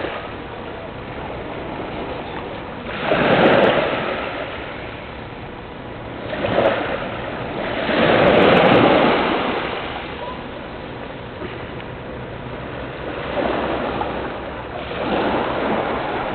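Small waves washing in on a sand beach at the water's edge. The wash swells and falls back about five times, loudest about eight to nine seconds in.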